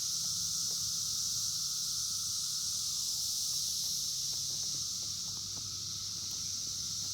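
Steady high-pitched chorus of insects in the summer garden, with a low steady hum beneath it and a few faint small ticks.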